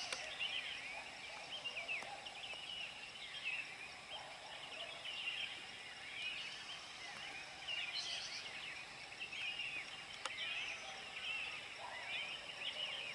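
Many small birds chirping and twittering together in a dawn chorus, their short quick calls overlapping throughout over a faint, steady high-pitched hum. A single sharp click sounds about ten seconds in.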